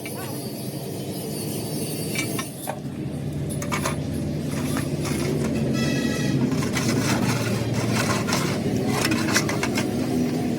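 A machine running with a steady low hum, with scattered sharp clicks and knocks and a brief high-pitched squeak about six seconds in.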